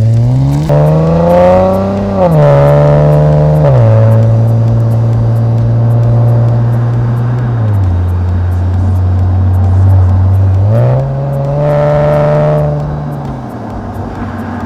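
Infiniti Q50's VR30 3.0-litre twin-turbo V6 breathing through a Stillen cat-back exhaust, accelerating with rising pitch and upshifting twice in quick succession. It then holds a steady cruise, drops in pitch once more, and pulls up again before easing off and fading near the end.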